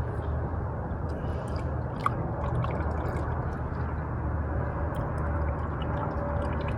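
Motor oil pouring steadily from a pitcher through a funnel into an engine's oil filler.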